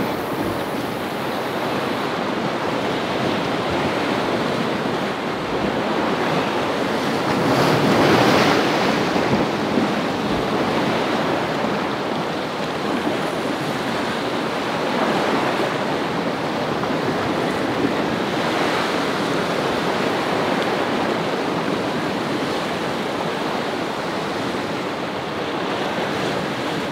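Sea waves washing against a rocky shore: a steady rush that swells and eases in surges, loudest about eight seconds in.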